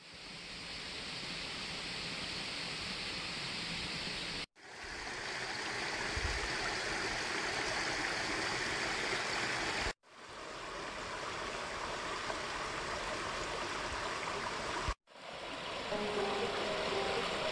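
Rushing water of a mountain stream, heard as a steady hiss in four short clips, each cut off abruptly and fading back in. Soft music notes come in near the end.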